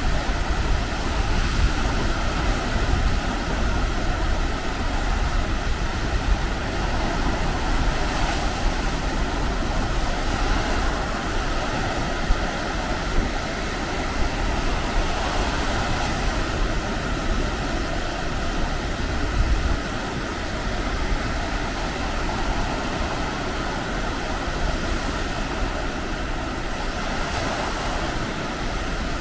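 Baltic Sea surf washing steadily onto the beach, with wind buffeting the microphone.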